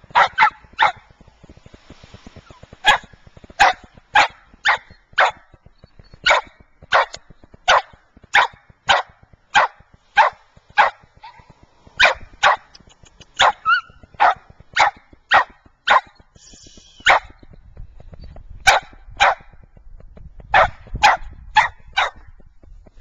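A dog barking over and over in short, sharp single barks, about two a second, with a couple of brief pauses.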